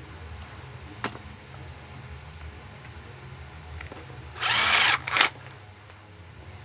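Electric drill or power screwdriver driving a screw into the fan's wooden casing: one run of about half a second, then a brief second pull of the trigger. A single sharp click about a second in.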